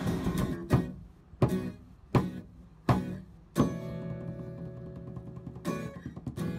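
Background music on guitar: five sharply struck chords about two-thirds of a second apart, then a held chord left ringing, with more strokes near the end.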